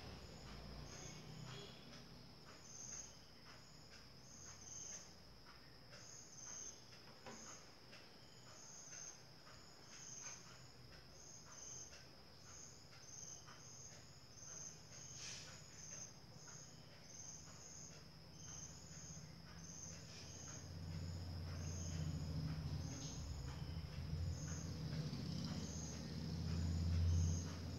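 Crickets chirping: a steady high trill with short chirps repeating about once or twice a second. A low hum grows from about twenty seconds in and is loudest near the end.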